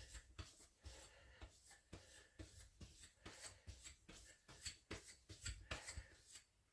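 Faint, light scraping strokes of a steel knife blade across a diamond sharpening plate, about two a second: stropping passes on the plate to minimize the burr.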